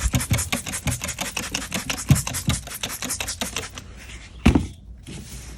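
Rapid back-and-forth scrubbing on a motorcycle wheel rim, several strokes a second, working at caked road-salt crust. A single knock comes about four and a half seconds in.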